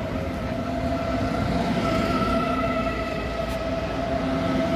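Munich S-Bahn electric multiple unit moving off past the platform: a steady electric whine in several tones from its drive over a low rumble of wheels on the rails.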